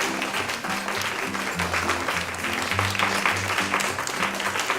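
Audience clapping and applauding over background music that plays steady sustained notes.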